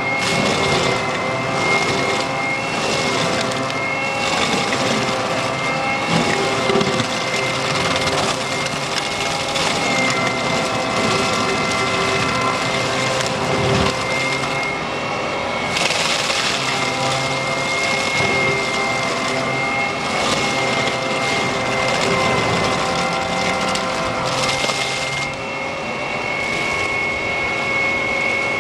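AHWI SF1100 tractor-mounted stump grinder running steadily under load, its cutter head grinding a stump and roots into chips in the soil, with a steady high whine over the machine noise.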